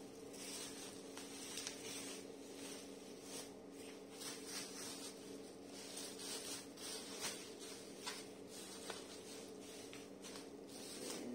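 Bubble wrap rustling and crinkling in short irregular bursts as it is handled and wrapped around a package, over a steady low hum.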